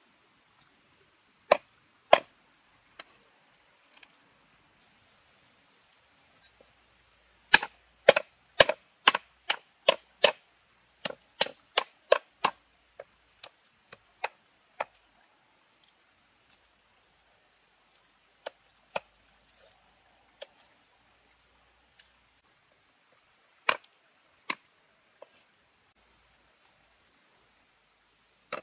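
Heavy cleaver chopping on a wooden chopping block, each chop a sharp single knock. They come in irregular runs, with a quick series of about a dozen at roughly two a second in the middle.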